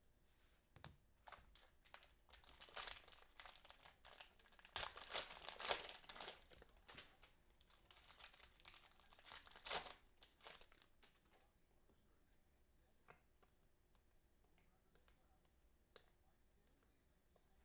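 Crinkly plastic cello pack wrapper of football trading cards being torn open and crumpled, crackling for about ten seconds, then only a few faint ticks.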